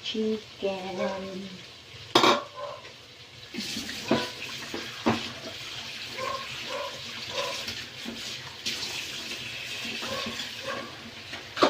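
Chicken going into a hot pan of butter, garlic and onion and sizzling, with knocks and clinks of a metal utensil against the pan.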